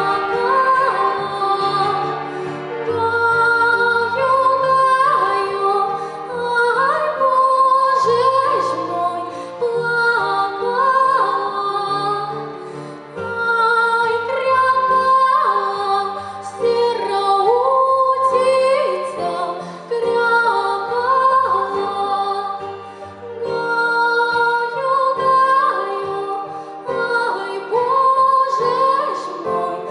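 Female voices singing a slow, lyrical song in harmony, with long held low notes sounding underneath.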